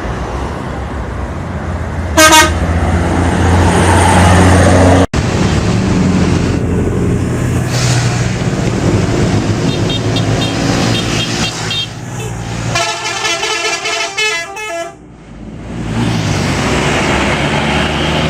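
Bus engine running, with a short loud horn blast about two seconds in, then a telolet horn, a multi-tone musical bus horn, playing quick runs of changing notes from about ten seconds, loudest around thirteen to fifteen seconds.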